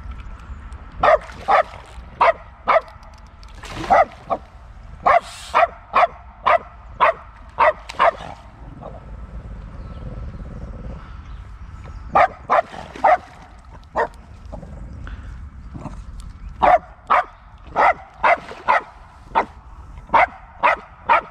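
Dog barking repeatedly in short, sharp yaps, about two a second. There is a pause of a few seconds in the middle, then the barking starts up again.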